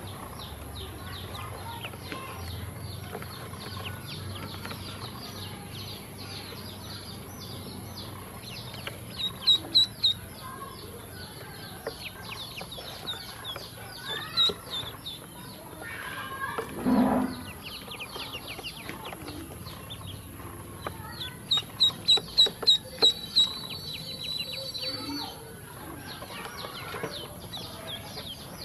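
A group of ducklings peeping constantly, many short high calls overlapping. Louder runs of quick repeated peeps come about a third of the way in and again around three quarters through, with one lower, louder call a little past halfway.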